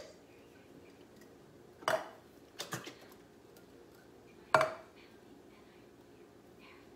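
Tin cans knocking against the rim of a slow cooker's crock as canned tomatoes are tipped and shaken out: a few sharp knocks, the loudest near the end with a short ring.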